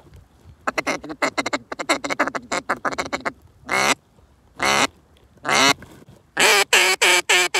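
Duck call blown in quacks: a fast run of short quacks, then three single quacks about a second apart, then another quick series of louder quacks.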